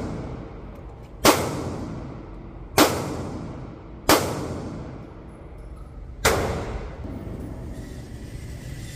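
Four gunshots at irregular spacing, about one and a half to two seconds apart, each with a long echoing decay inside an indoor shooting range.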